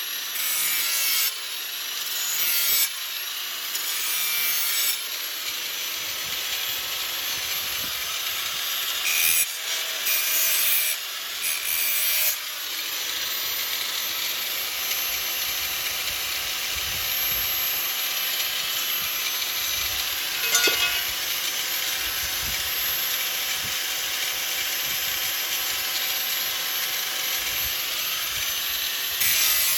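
Angle grinder grinding the steel cutting edge of a lawn mower blade, with a high motor whine and harsh scraping. It comes in several short passes, then grinds steadily for most of the time.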